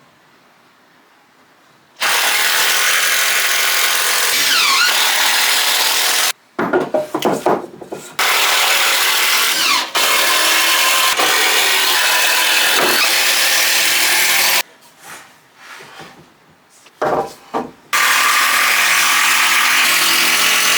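Power drill driving long 4-inch wood screws into 4x2 timber: three long, loud runs of the motor a few seconds each, its pitch dipping now and then as a screw bites, with short spells of clicks and knocks between as the next screw is set.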